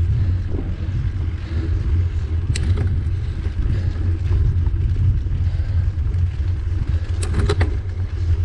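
Steady low rumble of wind and road vibration picked up by a camera mounted on a mountain bike's handlebars, riding uphill over asphalt and then cobblestones. A few sharp clicks from the bike rattling cut through, once about two and a half seconds in and several about seven seconds in.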